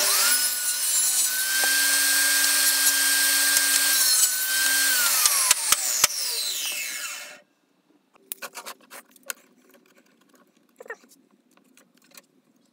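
Table saw switched on and running with a steady whine while small wooden pieces are cut; about five seconds in it is switched off and the whine falls as the blade coasts down. After that, only light taps and handling of the cut pieces.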